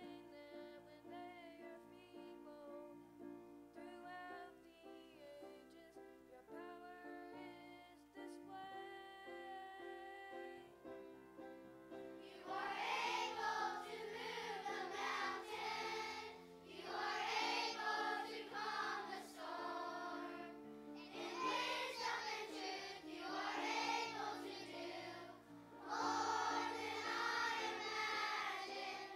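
Children's choir singing a song with instrumental accompaniment. For roughly the first twelve seconds a single child sings softly over the accompaniment, then the whole choir comes in much louder.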